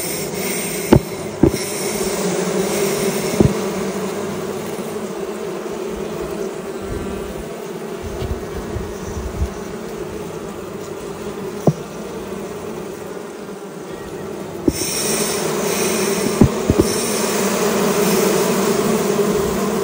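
Honeybee colony humming in an open hive, a steady hum that grows a little louder in the last few seconds as the bees are dosed with vapor from a vapor smoker. A hiss joins in at that point, and a few light clicks come through.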